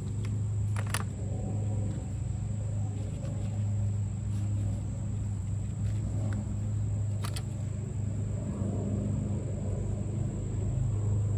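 A steady low machine hum, like an engine or motor running nearby. Two brief clicks, about a second in and about seven seconds in, come from handling the plastic nursery pots.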